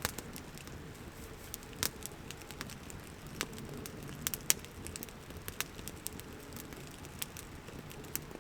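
Campfire crackling, with irregular sharp pops a few times a second over a low steady hiss.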